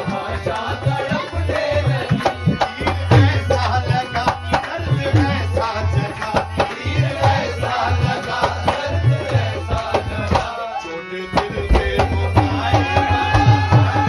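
A man singing live to a hand drum played in a quick steady rhythm. Voice and drum drop out briefly about ten and a half seconds in, then return with the voice holding one long note.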